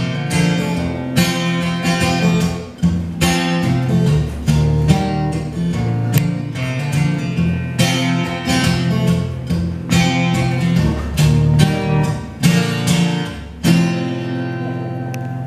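Solo acoustic guitar strumming the closing instrumental bars of a song, with no singing. The last chord is struck about two seconds before the end and left to ring.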